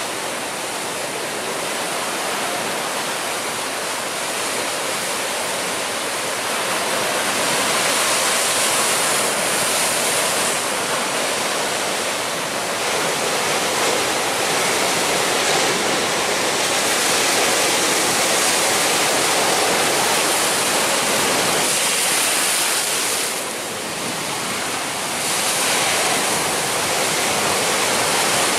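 Heavy ocean surf breaking and churning over rocks: a loud, continuous rush of foaming water that swells and eases, with a brief lull late on.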